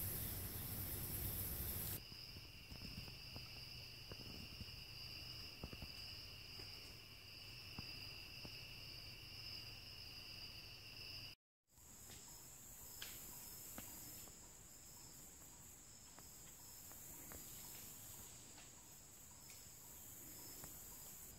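Insects calling with steady high trills. A louder rushing noise fills about the first two seconds. A two-pitched steady trill then runs until a brief dropout near the middle, and is followed by a higher steady trill with faint regular chirps beneath it.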